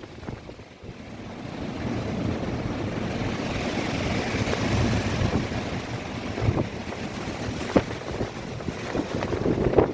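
Strong wind of about 68 km/h rushing and gusting, swelling about a second in, with low thumps now and then as gusts buffet the microphone.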